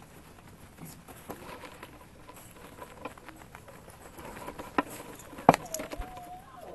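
Puppies moving about on puppy pads and floor: scattered light pattering and clicks of paws, with a sharp knock near the end followed by a puppy's brief wavering whine.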